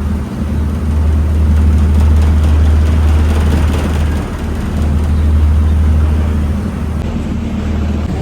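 Ferry engines running with a steady low drone, under a rushing noise of wind and water that rises and falls.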